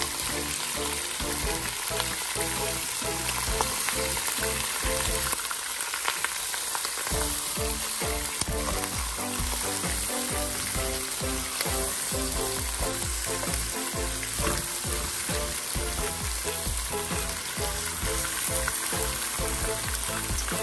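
Beef oxtail pieces sizzling as they sear in hot oil in a pot, with a wooden spatula stirring and turning them.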